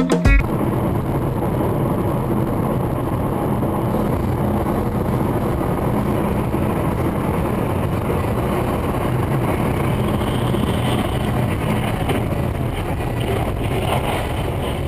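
Steady driving noise of a road vehicle: a constant low rumble of engine and tyres on the road, with no distinct impacts. Music cuts off just at the start.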